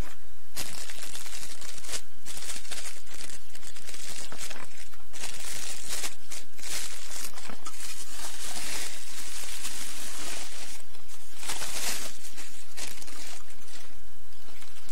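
Bubble wrap being handled and pulled open by hand: irregular crinkling and rustling of plastic that stops about two seconds before the end, over a steady low hum.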